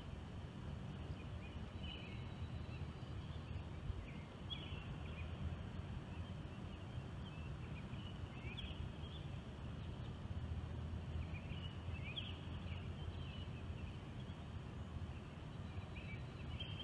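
Outdoor background noise: a steady low rumble with short, high chirps every second or two.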